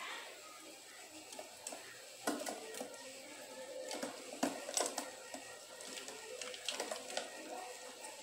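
Faint handling sounds of a plastic cup and plastic tub as live cockroaches are released by hand onto egg-carton shelters: scattered light clicks and taps, the sharpest a little after two seconds in and around four to five seconds in, over a quiet background.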